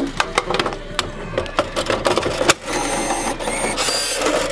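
Plastic clicks and knocks as a vending machine's bill acceptor cash box is handled and fitted back in place. Just past halfway these give way to a steady mechanical whir.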